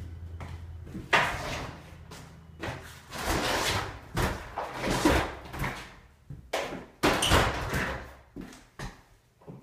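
Metal drywall taping knife scraping and knocking against a mud pan and the wall, in a run of short scrapes with sharp clacks between them. A low hum is heard in the first few seconds, then stops.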